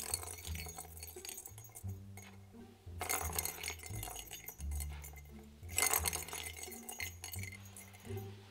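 A plastic bell ball rattling and clinking as it rolls around the track of a tiered cat toy, in three bursts a few seconds apart, over low background music.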